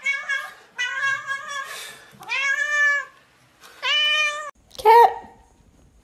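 Domestic cat meowing repeatedly: four drawn-out meows in the first four and a half seconds, one of them longer and arching in pitch, then a short, louder call about five seconds in.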